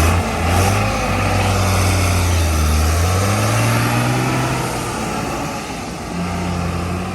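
Heavy diesel engine working under load, its pitch rising through the middle and then dropping back to a steady run near the end.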